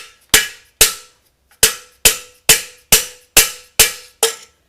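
Hammer blows on a steel bar driving at a stuck steering-head bearing race in a motorcycle frame, nine sharp metal strikes at about two a second, each ringing briefly.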